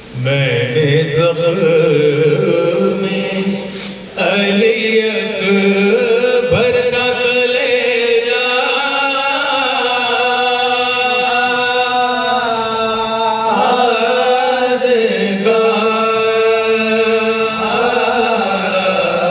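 Unaccompanied male voices chanting a marsiya, an Urdu elegy recited in Muharram, over a microphone. The melody is drawn out in long held notes, with a brief break about four seconds in.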